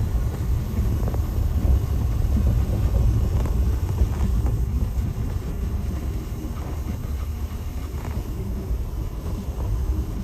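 Steady low rumble of a vehicle on the move, engine and road noise together.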